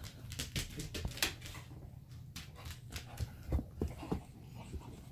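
A pit bull's paws and claws tapping and clicking irregularly as she walks about.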